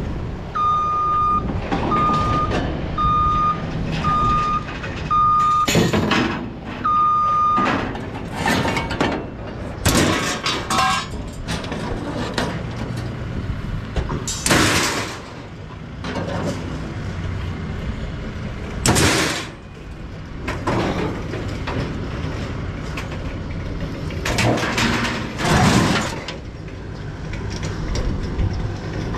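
A vehicle's reversing beeper sounds about once a second for the first seven seconds, over a steady engine rumble. Then scrap metal clangs, rattles and scrapes several times as wire shelving racks and sheet metal are handled in a pickup bed.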